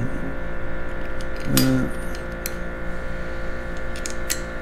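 A few light metallic clicks as the cam plate, cams and cam chain of a Harley-Davidson Twin Cam engine are handled on the bench, over a steady electrical hum. A short vocal 'uh' comes about a second and a half in.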